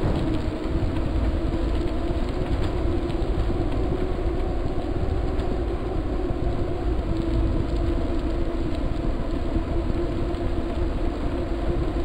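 Steady road and wind noise of a moving ride, with a heavy unsteady low rumble under a constant hum.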